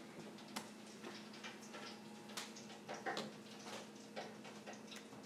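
Quiet room tone: a faint steady low hum with scattered light, irregular clicks and taps.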